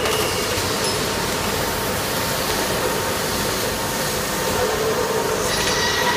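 Factory-floor machinery running: an automated assembly machine and the plant around it make a steady hiss and hum with a faint steady tone underneath. The hiss grows brighter near the end.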